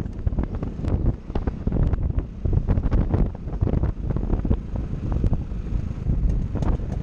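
Wind buffeting the microphone of a camera on a moving Piaggio MP3 scooter: an uneven low rumble that swells and drops in gusts, with the scooter's running noise beneath it.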